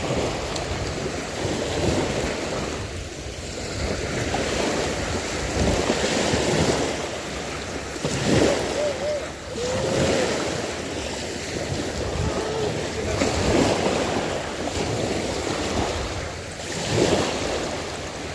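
Wind buffeting the microphone over waves washing, a rushing noise that swells and eases every few seconds.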